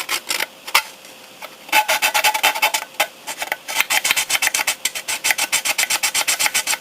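Hand sanding of a plastic model car body, smoothing away moulding flash around the back window: a few scattered strokes, then quick, steady back-and-forth scraping strokes from about two seconds in.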